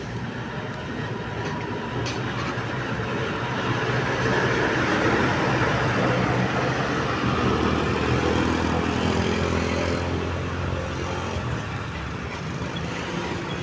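A heavy vehicle driving past, its engine and road noise swelling to a peak mid-way and fading again.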